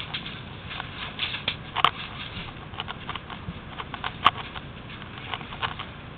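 Crackling and rustling of dry leaves, twigs and brush under footsteps moving through undergrowth. Two sharper snaps stand out, about two seconds in and again about four seconds in.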